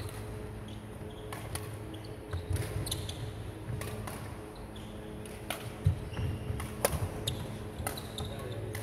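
Badminton rally: sharp racket-on-shuttlecock hits, several in irregular succession, with short squeaks of shoes on the wooden court floor and footsteps, over a steady low hum.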